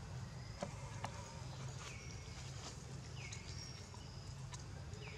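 Outdoor ambience with a steady low hum. Two sharp clicks come about half a second and a second in, and a few short chirps falling in pitch follow later.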